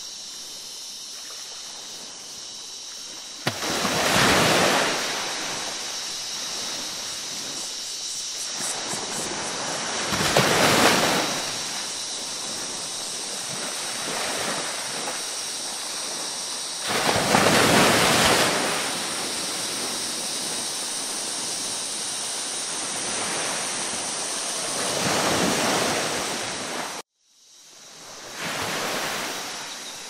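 Ocean waves surging and washing in, five swells about every seven seconds over a steady hiss of surf. Near the end the sound cuts out abruptly for a moment and returns with another wave.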